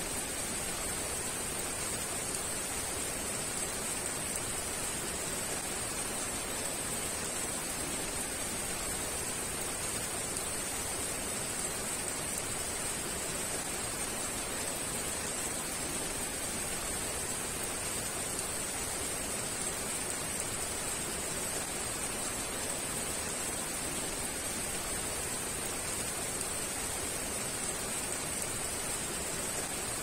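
Heavy rain falling steadily: a dense, even hiss with no single drops standing out and no change in strength, topped by a steady high hiss.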